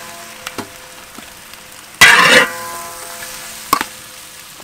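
Metal spatula scraping across a large wok of frying scrambled eggs, with a faint sizzle throughout. About two seconds in, one loud scrape leaves the metal ringing briefly; small clicks early on and a sharp knock near the end.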